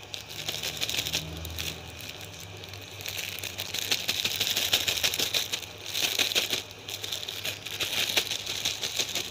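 Thin clear plastic sleeve crinkling and crackling as a plastic aquarium flower is pushed and pulled down inside it, in several spells of rapid crackling.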